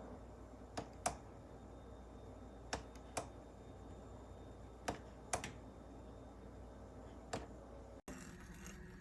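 Sharp clicks, mostly in pairs about half a second apart and repeating every two seconds or so, over a low steady hum; the sound changes abruptly about eight seconds in.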